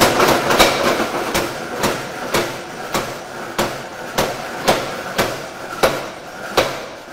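Mechanical power hammer striking a red-hot steel blade in a steady rhythm of about two blows a second. It is forging out the sword's cutting edge.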